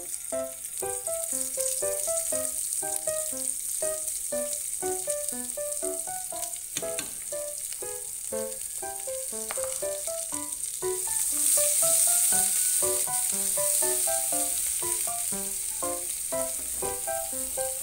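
Food sizzling as it fries in hot oil in a pan, a steady hiss that grows louder about eleven seconds in. Background music with a light melody plays over it.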